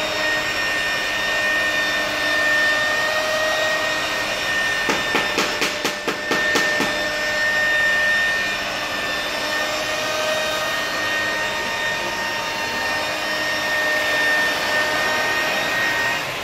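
KEN electric rotary polisher running steadily with a high, even whine, its pad buffing a car side window with glass-polishing compound. A run of rapid clicks comes about five seconds in and lasts a couple of seconds.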